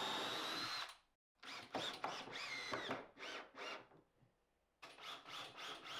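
Cordless drill driving screws through a timber shelf into the frame. It runs steadily, stops about a second in, then gives several short bursts whose motor pitch rises and falls, followed by a few light clicks near the end.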